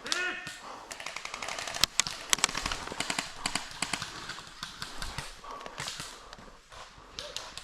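Airsoft guns firing: sharp clicking shots in quick irregular runs, loudest about two seconds in, then thinning out. A brief call of a voice at the very start.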